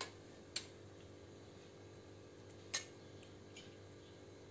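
A few light clinks of a stainless-steel ladle against steel serving vessels, three short sharp taps with the loudest near the three-second mark, over a faint steady hum.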